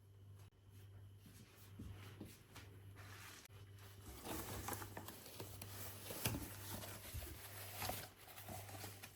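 Household items being handled close by: rustling, with scattered light clicks and knocks that grow busier about halfway through, one sharper click among them, over a faint low hum.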